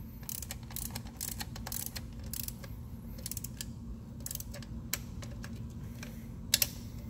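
Low-range torque wrench ratcheting in quick, uneven clicks as the injector tool's anchor bolts are torqued down to 7 foot-pounds, with one louder double click near the end.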